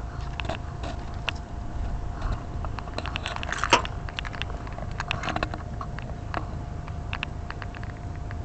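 A Chevy Blazer's engine running steadily with a thin, steady whine, overlaid by scattered clicks and crackles from handling under the hood. The clicks are loudest in a cluster about three to four seconds in.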